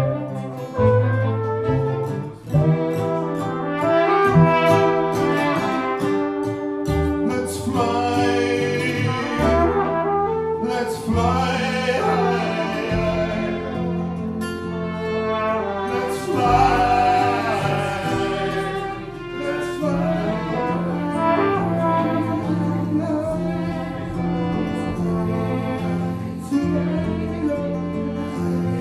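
Live acoustic band playing: a flugelhorn melody over strummed acoustic guitar, violin and plucked double bass.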